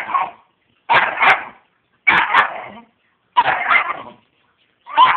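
Great Dane puppy barking in a series of five short barks, about one every second, several of them doubled.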